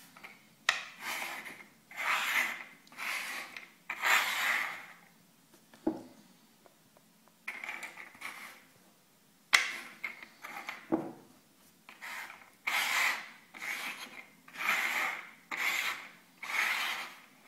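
Small dome-shaped covers slid and rubbed across a wooden tabletop in a run of scraping strokes, each lasting about half a second to a second, with a short pause around a third of the way in. A few sharp knocks come as covers are set down on the wood.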